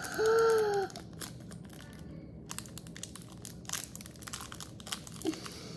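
Small toy packets being crinkled and torn open by hand, with dense irregular crackling. It opens with a short pitched vocal note lasting under a second.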